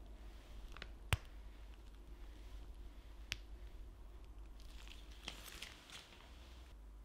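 Crema pasticcera being piped from a piping bag through a metal closed-star nozzle onto a baked choux zeppola: quiet squishing and crinkling of the squeezed bag, with a sharp click about a second in and another a little after three seconds.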